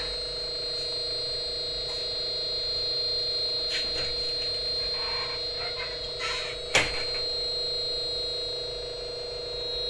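Steady electrical hum with a high, thin whine from a powered inverter air-conditioner test setup, with one sharp click about seven seconds in.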